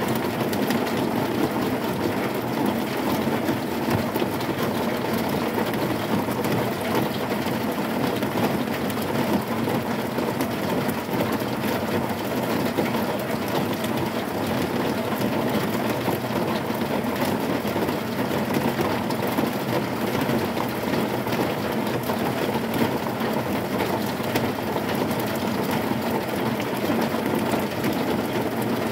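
Heavy rain falling steadily on a corrugated zinc sheet roof: a dense, unbroken patter of drops on the metal, with no thunder.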